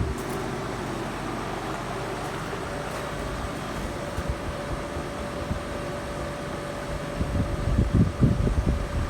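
Trane XL1800 heat pump outdoor unit running in heating mode: steady fan and compressor noise with a constant hum. Wind buffets the microphone in the last couple of seconds.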